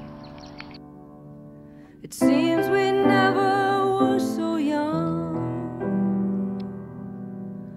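Background music from a song: held notes fade softly for about two seconds, then the music comes back louder with a wavering melody line over sustained chords.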